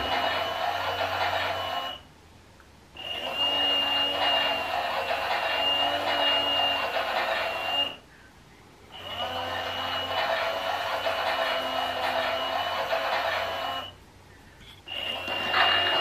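Klein toy Miele washing machine running its wash: the small motor whirs with a high steady whine as it turns the drum, running about five seconds at a time with roughly one-second pauses between runs.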